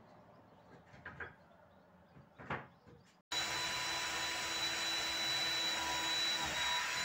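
A few light wooden knocks as pallet slats are handled, then, about three seconds in, a cordless DeWalt drill starts boring into a pallet board. The drill runs as a steady motor whine with the bit cutting wood, the loudest sound.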